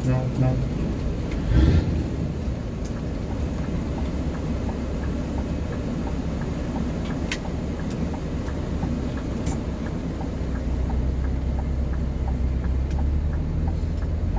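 Heavy diesel vehicle engine running steadily, with a knock about a second and a half in and the low rumble growing heavier about ten seconds in.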